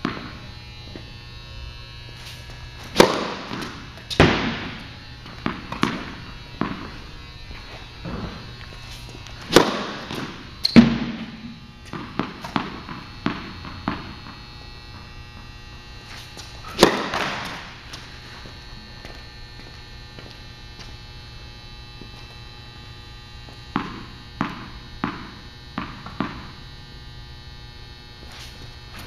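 Tennis practice serves on an indoor hard court: several sharp racket-on-ball strikes with an echo through the hall, and the ball bounced on the court before a serve, five quick bounces about half a second apart near the end. A steady low hum runs underneath.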